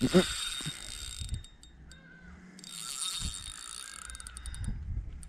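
Spinning reel being cranked against a hooked fish, its gears whirring in two spells with a quieter pause of about a second between them, and runs of quick clicks. A short, louder low sound comes right at the start.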